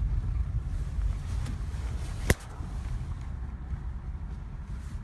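Low rumble of a car driving, heard from inside the cabin, with one sharp click a little over two seconds in, after which the rumble is quieter.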